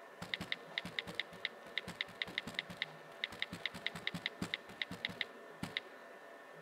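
iPod touch on-screen keyboard click sounds, one short tick per keystroke, in a quick, uneven run of about two dozen as a short sentence is typed. The clicks stop a little before the end.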